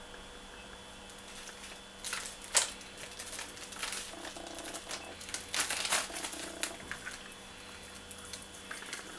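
Light kitchen handling sounds, a few scattered rustles and taps, as fish seasoning is put onto raw snapper, over a faint steady hum.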